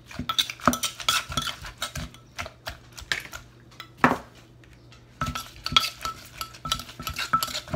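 Wooden pestle knocking and a metal spoon scraping and clinking in a clay mortar, mixing and bruising the seasoning for papaya salad. The knocks and clinks come irregularly, with one louder knock about four seconds in, a brief lull, then quicker clinking near the end.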